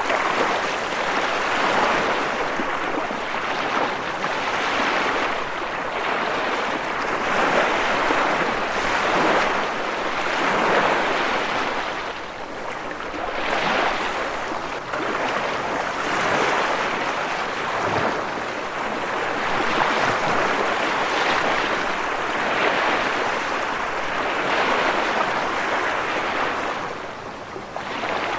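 Continuous rushing water, an even hiss that swells and eases every couple of seconds.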